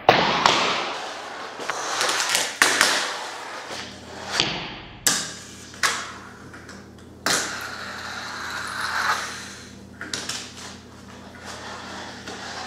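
A fingerboard, a miniature skateboard, doing tricks: about eight sharp clacks as the deck pops and lands on the table and a miniature bench, each followed by the small wheels rolling away and fading. A low steady hum runs under it from about four seconds in.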